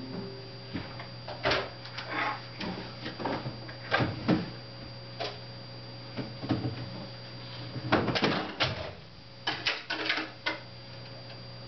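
Scattered clicks, rustles and light knocks of small household items being handled on the floor, with a cluster about four seconds in and another around eight to ten seconds, over a steady low hum.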